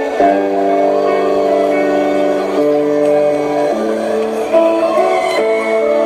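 Instrumental music with guitar: held chords that change every second or two, with no singing.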